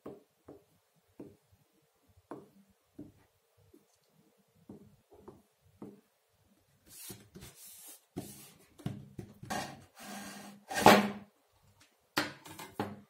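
Light taps and handling sounds as a paper template is pressed onto a small board. Then, from about seven seconds in, a handsaw cuts the wood in a string of short strokes, the loudest a little before the end.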